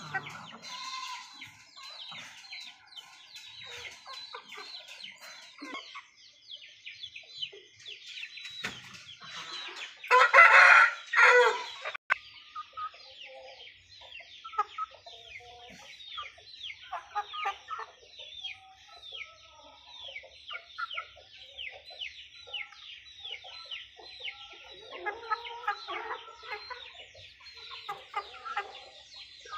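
Chickens clucking, with constant high-pitched chirping in the background; about ten seconds in, a rooster crows loudly, the crow in two parts.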